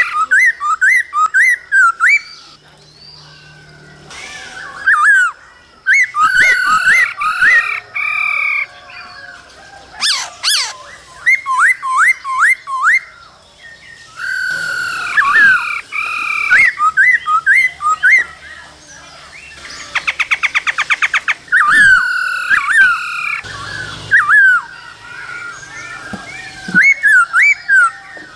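Black-throated laughingthrush singing: loud phrases of quick whistled notes sweeping up and down, a few seconds each with short pauses between, and a fast buzzy rattle about twenty seconds in.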